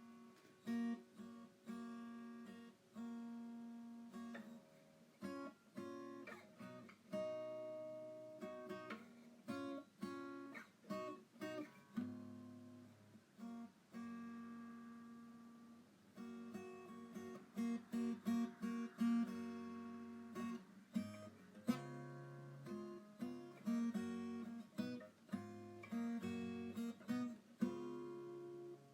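Background music: acoustic guitar picking and strumming chords, the notes ringing out after each pluck.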